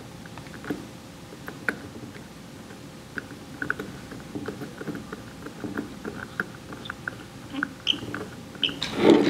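Small scattered clicks and light scraping from fingers turning a new diaphragm clockwise onto a KNF diaphragm pump, with a louder bump near the end.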